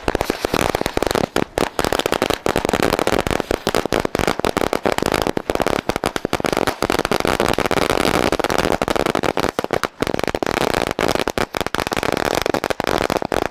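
A 1,000-cracker string of firecrackers (hazar wali ladi) going off in a rapid, continuous chain of sharp bangs as it burns along its length, stopping at the very end.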